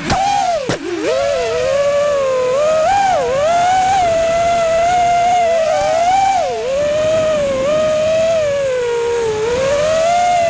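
Brushless motors of a 6S five-inch FPV freestyle quadcopter (2306 1960kv motors on Gemfan Hurricane 51466 props) whining in flight. The pitch rises and falls with the throttle, with two quick sharp drops near the start where the throttle is chopped, over a steady rush of prop wash and wind.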